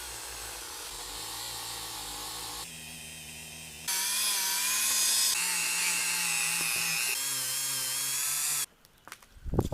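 A power tool running with a steady whine, in short stretches that change abruptly every second or two. It stops suddenly near the end, and a loud knock follows.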